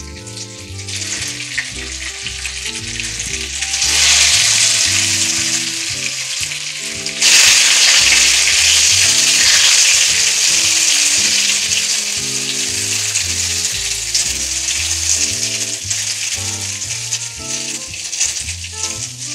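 Cornmeal-coated green tomato slices sizzling in hot oil in a frying pan. The sizzle swells about four seconds in, jumps louder at about seven seconds, then eases a little, over soft background music.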